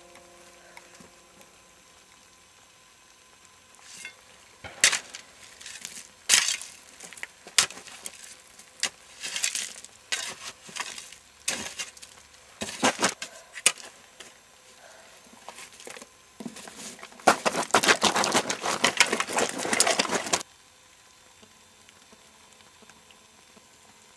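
A stick scraping and scratching through loose slate gravel in irregular strokes, ending in a few seconds of rapid, continuous scraping that stops abruptly.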